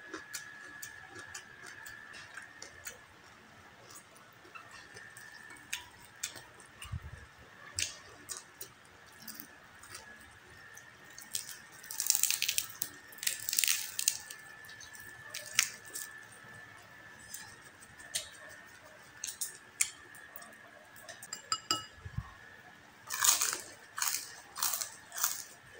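Crisp deep-fried pork skin crackling as fingers pick at and tear apart a crispy pata, with a dense run of crackles about halfway through, then crunchy chewing near the end. A faint steady high tone sits underneath.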